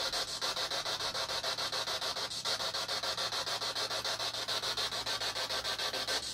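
Handheld spirit box sweeping radio stations: a steady hiss of static chopped into rapid, even pulses, about six a second.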